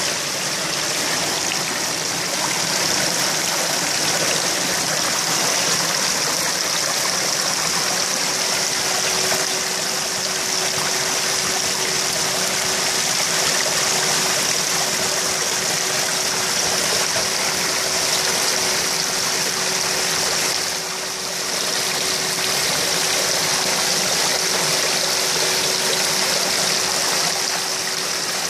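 Water splashing steadily into a koi pond, a constant even rush, with a faint steady hum through the middle stretch.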